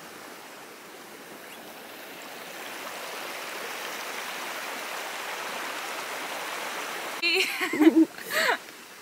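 Hot drink pouring from a thermos flask into its cup, a steady rushing trickle that builds over the first few seconds. Near the end, a couple of short, louder sounds cut in.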